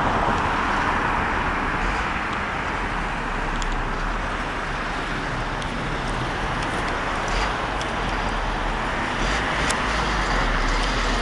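Road traffic going by: a steady rush of passing cars that swells just after the start and again near the end.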